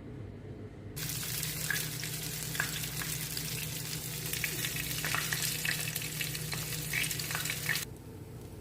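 Mackerel frying in hot oil: a dense sizzle with scattered crackling pops. It starts abruptly about a second in and cuts off near the end, over a steady low hum.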